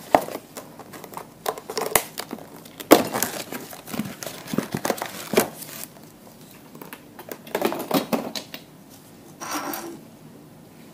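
Packaging crinkled and torn open by hand, in irregular bursts of rustling and crackling with small handling clicks, and a longer rasping rip near the end.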